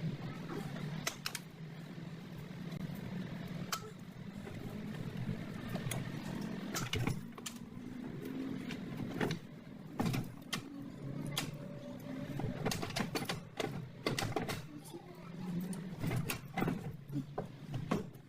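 Irregular metallic clicks and knocks of hand tools working on a car's gearbox and clutch parts, over a steady low hum.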